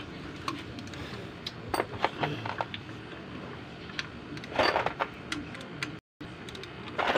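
Metal clinks and scrapes of a hand wrench working bolts under a Nissan GA16 engine. A few sharp clicks come about two seconds in, and a longer rattle comes near the five-second mark.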